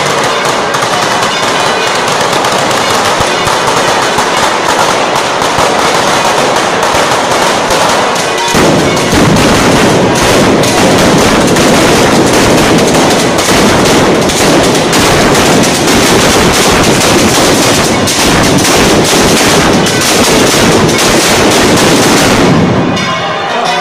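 Street fireworks and firecrackers going off in a dense, continuous barrage of rapid bangs and crackles, like machine-gun fire. About eight seconds in the barrage gets louder and heavier, then it stops shortly before the end.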